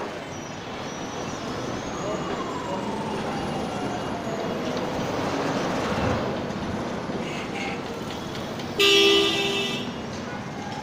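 Street noise of passing vehicles with a loud vehicle horn blast, about a second long, near the end.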